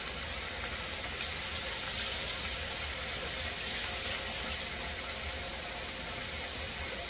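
Eggs frying in a skillet over cooked meat and vegetables on an electric burner: a steady sizzle, with two faint ticks in the first second or so.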